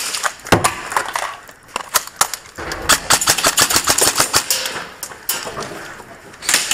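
Airsoft guns firing in rapid strings of sharp cracks, with one long burst through the middle and another starting near the end.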